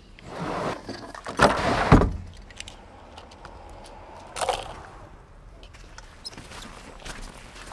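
Fishing gear being handled in a pickup truck bed: a rustle, then a loud clattering thump about two seconds in, and a sharp clack a little past four seconds, with light clicks and rustling between.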